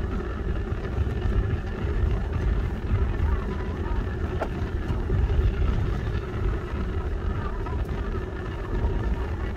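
A car driving along a road: a steady low engine and road rumble heard from inside the cabin.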